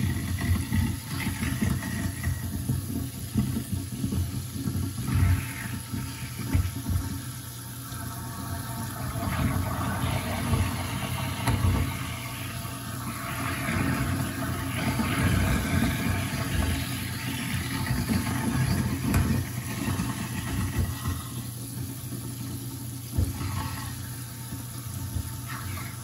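InSinkErator garbage disposal running with water flowing into it: a steady motor hum under irregular rattling and knocking as food is ground up.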